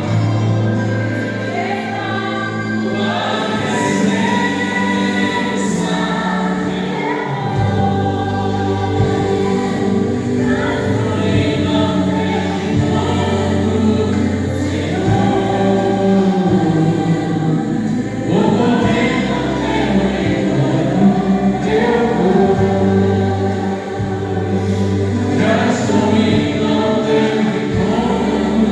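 A vocal group singing a gospel hymn with musical accompaniment and a steady bass line.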